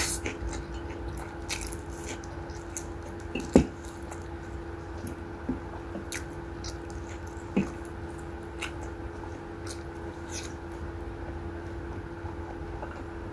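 Close-miked mouth sounds of a person chewing spicy instant rabokki noodles: soft wet squishes and small clicks, with a louder click about three and a half seconds in and again around seven and a half, over a faint steady hum.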